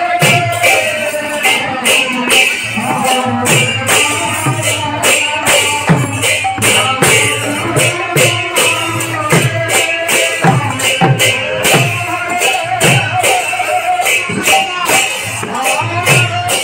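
Live kirtan devotional music: a two-headed barrel drum (khol) beaten in a steady rhythm of low strokes, with jingling metal percussion clashing over it and voices singing a melody.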